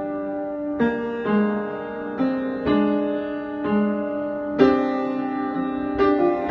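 Piano played with both hands at a slow, gentle pace, a new chord struck about once a second and left to ring over the next.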